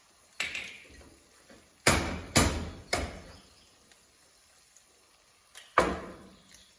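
Five sharp knocks on hard kitchenware during cooking: a light one near the start, three in a row about half a second apart in the middle, and one more near the end.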